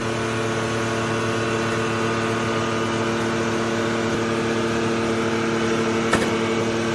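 Steady machinery hum: a few fixed tones over an even noise bed, unchanging throughout, with a light click about six seconds in.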